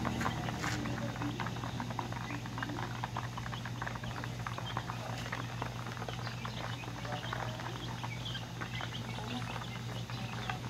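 Chicks and young chickens peeping, many short high chirps scattered over one another, over a steady low hum.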